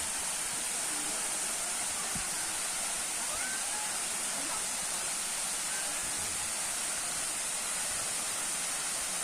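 Waterfall rushing in a steady, unbroken hiss of falling water.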